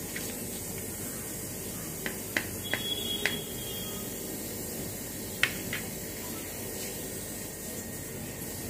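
Kitchen knife cutting through a soft baked cake on a plate: faint rubbing as the blade is drawn through, with a handful of light clicks, mostly in the middle, as the blade touches the plate. A steady background hiss lies under it.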